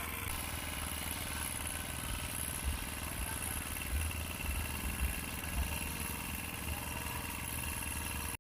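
Steady street background noise with motorbike engines running, a low rumble with a few irregular thumps in the middle.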